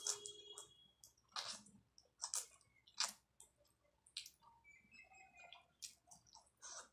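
Close-up mouth sounds of a person eating instant ramen noodles: wet slurps and chewing, with short irregular clicks and smacks about once a second.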